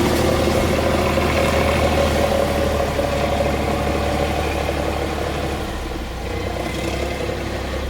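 Engine of a BL 130 running steadily while it works silage, its note slowly getting quieter toward the end.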